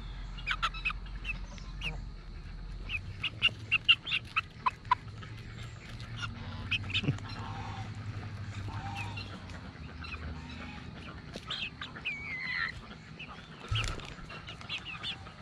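Young chickens calling close by: many short, sharp peeps in quick runs, with a longer call falling in pitch near the end.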